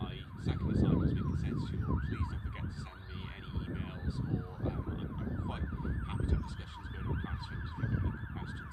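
Emergency vehicle siren in fast yelp mode, its pitch sweeping up and down about three times a second without a break.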